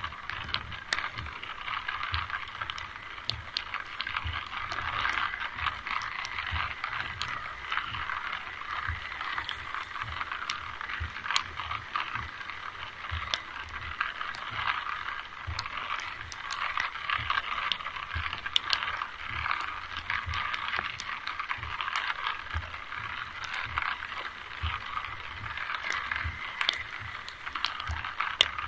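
Rain falling: a steady hiss with many scattered sharp ticks of drops, and soft low thumps throughout.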